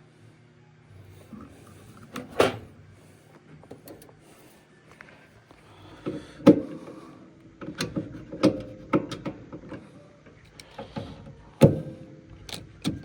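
Irregular knocks and clanks from handling furnace parts and tools, several with a short metallic ring, over a low steady hum.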